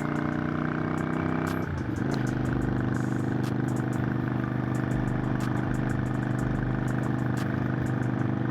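Motorcycle engine running under way, a steady engine note that dips briefly about two seconds in and then holds level again.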